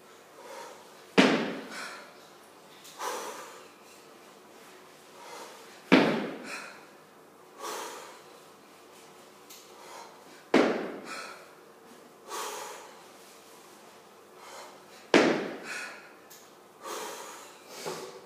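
Repeated kettlebell jerks with an 18 kg kettlebell: a sharp thud about every five seconds, four times, each followed by softer knocks and heavy breathing.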